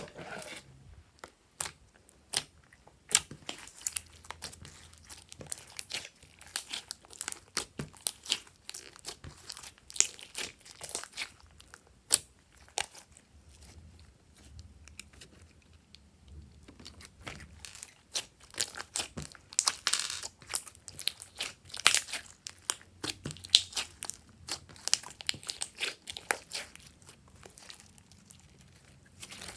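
Slime being squished and stretched by hand, with many irregular sticky crackles and small pops.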